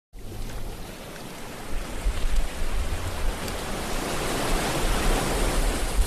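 Ocean surf breaking on a sandy beach: a steady rush of noise that grows louder over the first two seconds.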